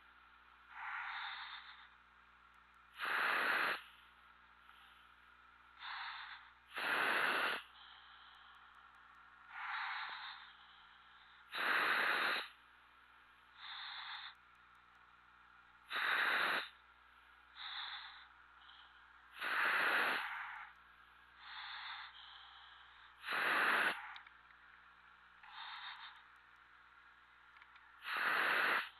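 A helmeted commercial diver breathing through the helmet's demand regulator, heard over the dive communications. A loud regulator hiss comes on each inhale about every four seconds, with a softer exhale between, in a slow, even rhythm.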